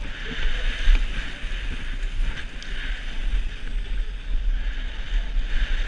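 Wind buffeting a helmet-mounted camera's microphone as a BMX racer rides at speed: a heavy low rumble under a steady hiss.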